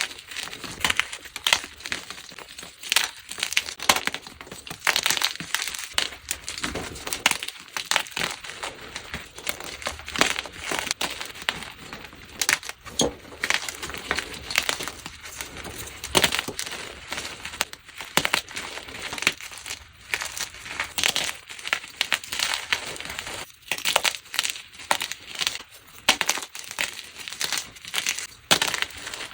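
Blocks of gym chalk being crushed and crumbled by hand, a dense run of dry, crispy crunches and crackles that goes on without a break.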